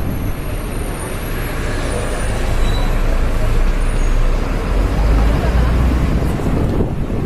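Open-top double-decker tour bus running through a street, heard from its upper deck: a steady low engine rumble mixed with street traffic noise.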